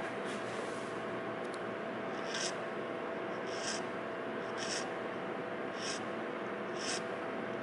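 Repeated scraping strokes, about one a second, over a steady background hum.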